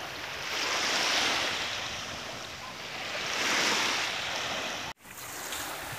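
Small waves washing onto a sandy shore, a hissing wash that swells and fades twice. The sound cuts out for an instant near the end.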